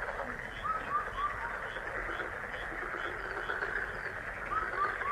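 Frog chorus calling: a dense, steady chorus of croaks with short chirps repeating about twice a second. Two quick runs of four falling notes stand out, one about a second in and one near the end.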